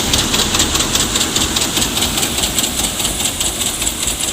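Engine-driven paddy threshing machine running steadily with a fast, even mechanical rattle.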